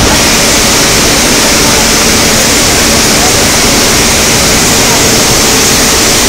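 Loud, steady rushing noise of a Danieli Centromet continuous billet caster running, with hot steel strands moving through it.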